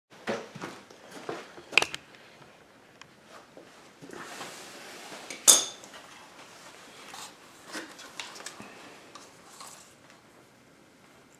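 Hard plastic parts being handled and fitted by hand: irregular clicks, clinks and light knocks over soft handling noise, with sharp clicks about two seconds in and, loudest, about five and a half seconds in.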